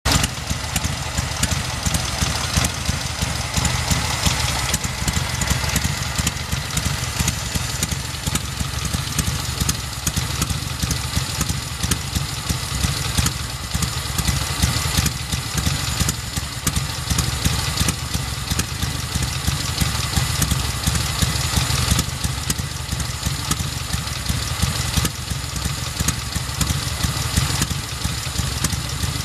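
1939 BMW R12 military motorcycle's side-valve flat-twin engine idling steadily.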